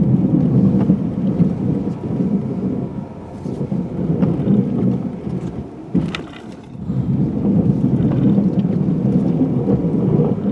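Pickup truck plowing snow: a loud, continuous low rumble of the engine and the plow blade pushing and scraping snow. It eases off twice and comes back, with a sharp knock about six seconds in.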